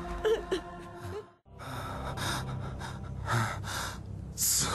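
A man's laboured, gasping breaths, heard as several heavy breaths about a second apart in the second half, from a crucified man struggling for air as he dies. About a second and a half in the sound drops out briefly.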